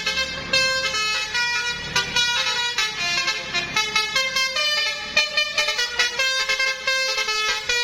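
Bus telolet horn playing a quick tune of short, changing pitched notes, with a bus engine running underneath.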